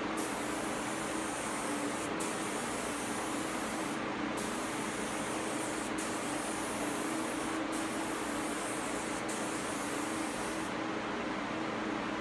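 Gravity-feed spray gun hissing as it sprays sanding sealer onto a cabinet door, in about six passes with brief pauses between trigger pulls. The spraying stops a little before the end, over a steady background hum.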